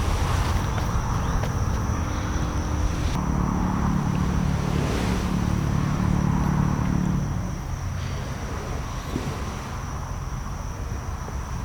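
Outdoor ambience of a thin, steady, high insect drone over a low rumble. A low engine hum swells from about three seconds in and fades after about seven seconds.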